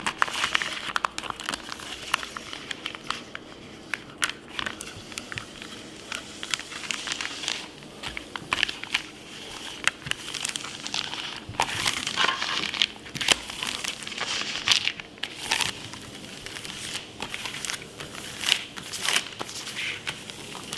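Clear plastic pouch of a carbon-fibre composite patch crinkling and rustling under a plastic stick drawn across it in repeated, irregular strokes, squeezing the epoxy resin down through the carbon fabric inside.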